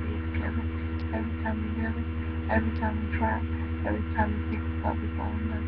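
Steady electrical mains hum, with faint, indistinct talking behind it.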